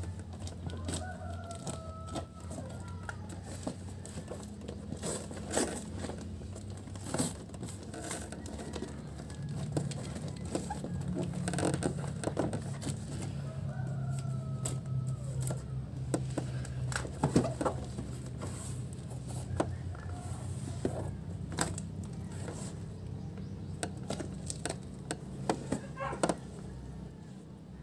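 Scissors snipping through packing tape and cardboard, with the box being handled in scattered clicks and scrapes. A rooster crows in the background several times.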